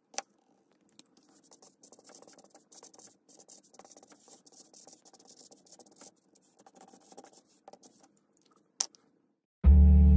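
Marker pen scratching across paper in short strokes while writing, faint, with a sharp click near the start and another near the end. Loud music starts just before the end.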